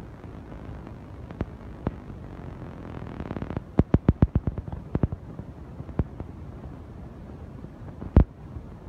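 Hard clacks and knocks of fired clay bricks being handled and stacked: a few single knocks, a quick run of about ten clacks around the middle, and the loudest single knock near the end, over a steady low background rumble.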